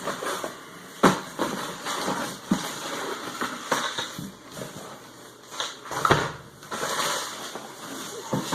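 Cardboard shipping box and its packing being handled and opened: crinkling and rustling with a few sharp knocks.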